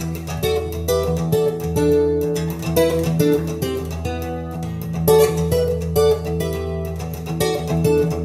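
Instrumental guitar passage of a song played back on a hi-fi system: plucked and strummed guitar notes over a steady bass line.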